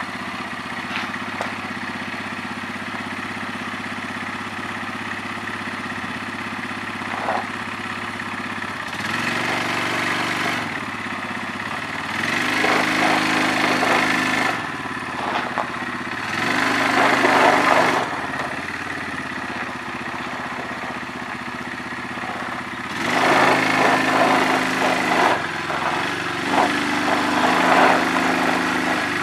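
ATV engine idling, then revving up in several bursts of two to three seconds each, with idling in between, as it pushes a boat trailer backwards. The two-wheel-drive machine lacks the traction for this load.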